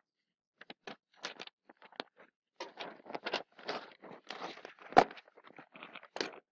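Classroom handling noises: irregular soft shuffles and rustles, with one sharp click about five seconds in.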